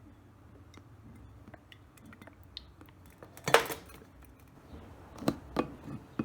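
Glass science flask and plastic oil bottle being handled while compressor oil is measured out: small clicks, then one sharp clink with a short ring about halfway through, and a few lighter knocks near the end.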